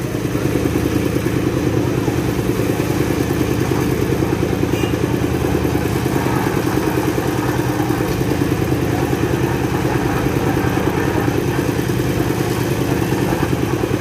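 Engine-driven concrete mixer running steadily while it mixes a load of sand, gravel and cement.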